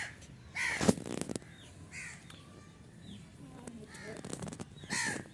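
Crows cawing about four times, each a short harsh call, over faint higher bird chirps, with a sharp knock about a second in.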